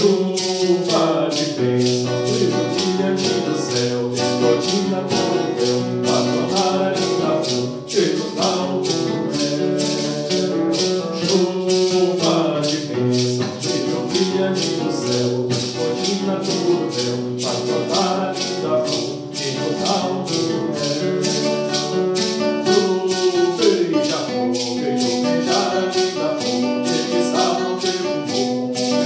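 A devotional hymn sung to acoustic guitar, with a maraca shaking a steady beat.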